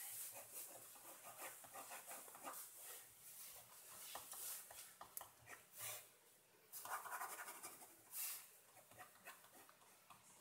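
Faint scratching of a ballpoint pen on paper in quick, irregular short strokes, with a few longer, louder hissing bursts about seven and eight seconds in.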